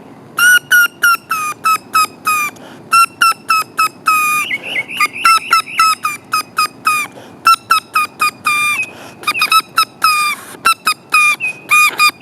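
Blade of grass stretched between the thumbs and blown as a reed whistle: a rapid run of short, sharp squawking notes, several a second, in quick bursts with brief pauses.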